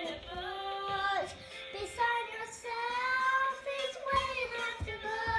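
A young girl singing, in long held notes that slide up and down in pitch.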